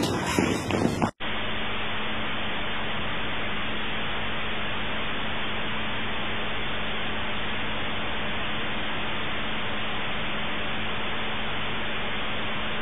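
Steady hiss of recording noise with a faint low hum. It follows an abrupt cut from the previous audio about a second in.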